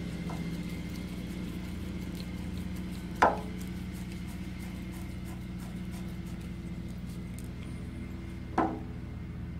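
Two sharp clinks of hand tools and steel casing bolts being handled on the workbench during alternator reassembly, one about three seconds in and one near the end, each ringing briefly, over a steady low hum.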